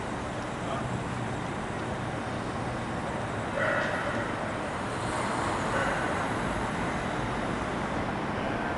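Steady outdoor rumble and hiss, with a short bark-like call about three and a half seconds in and a louder stretch a little after.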